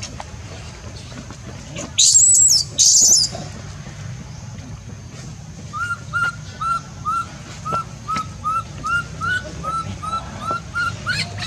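Newborn baby macaque crying: two loud, high-pitched screams about two seconds in, then a steady run of short chirping whimpers, about three a second, from the middle on. These are the distress cries of an infant left alone on the ground.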